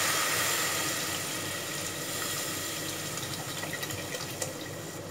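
Water pouring in a steady stream from a plastic jug into a metal cooking pot of fried chicken and spices, slowly getting quieter as the pour goes on.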